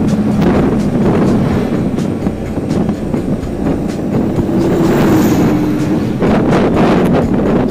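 Motorcycle engine running under way downhill, under heavy wind rush on the microphone; the engine's steady drone shifts up in pitch about halfway through, and gusty buffeting comes in near the end.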